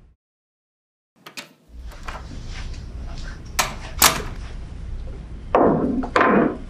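After a second of silence, a few sharp clicks and two loud knocks like a door being opened and shut, then two longer scraping, rustling sounds as a mug and papers are set on a wooden desk and a chair is drawn up.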